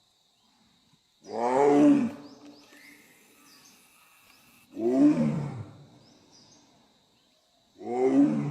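A big cat roaring three times, about three seconds apart; each roar is a loud call lasting about a second.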